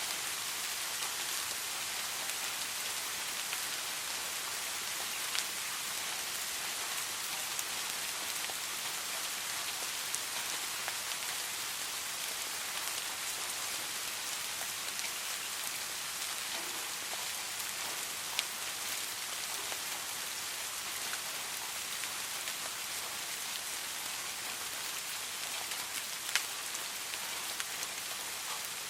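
Steady soft rain falling, an even hiss with the odd louder drop ticking sharply, a few times.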